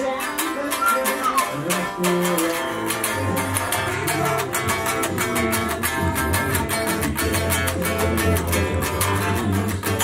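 Electric guitar tuned down to D standard and strung with heavy 12-gauge strings, playing a few separate notes and then, about three seconds in, a fast picked riff with a steady low chug underneath.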